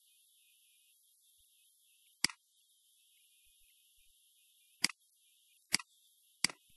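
Four sharp computer mouse clicks over a faint steady hiss: one about two seconds in, then three in quick succession near the end.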